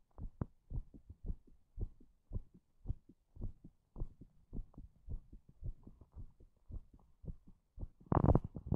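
Heartbeat recorded close up: regular, fast low thumps, about two beats a second. A louder burst of noise comes near the end.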